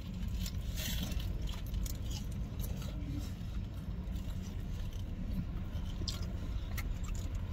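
Car engine idling, a steady low hum heard inside the cabin, with scattered light rustles and clicks over it.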